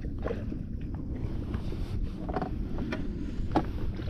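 Steady low wind and water rumble around a small foam fishing boat. Several light knocks and rustles come through it as the fishing line and the caught fish are handled against the hull.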